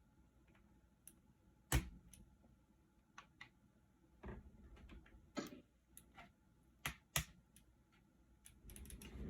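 Kailh Box Jade mechanical keyboard switches being pushed into a hot-swap keyboard: scattered sharp plastic clicks and snaps, a handful spread out, the loudest about two seconds in and a quick few near the end.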